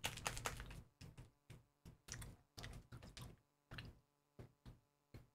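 A string of short, irregular clicks and smacks, about three a second, thinning out and stopping near the end.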